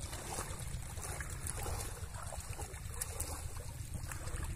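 Steady low wind rumble on the microphone over faint moving water, with a few light ticks.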